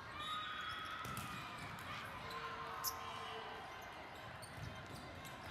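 Indoor volleyball rally in a large, echoing hall: one sharp ball strike about three seconds in, short sneaker squeaks on the court, and a background murmur of spectators and play on neighbouring courts.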